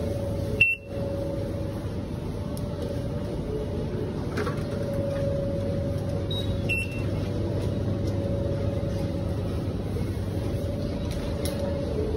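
Steady electrical hum of refrigerated supermarket display cases over a low background noise. Two short high beeps, one less than a second in and another about seven seconds in.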